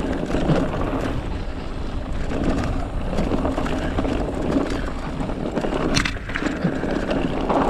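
Mountain bike rolling fast down a stony dirt trail: tyres crunching over loose stones and the bike rattling and knocking over the bumps, under a continuous low rumble on the camera microphone.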